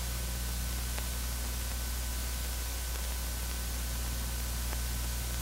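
Steady hiss with a low hum from an old film soundtrack, carrying no other sound, with two faint clicks, about a second in and near the end.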